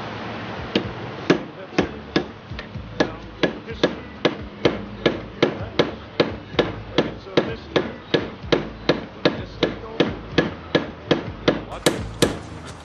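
Steady hammering on a steel bar held against the seized piston of a Johnson 140 outboard powerhead, about two and a half sharp metal strikes a second. The blows are trying to knock the frozen piston loose, and it is not budging.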